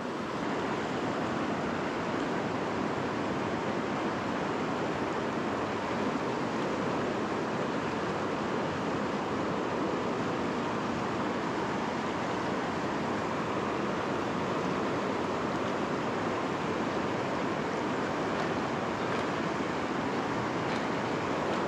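River rapids rushing steadily over boulders: an even, unbroken rush of whitewater.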